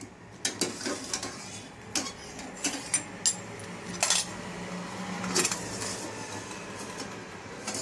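Silver items clinking and knocking against metal vessels as they are lifted out of the cleaning solution and put into another vessel: about ten separate clinks at uneven gaps.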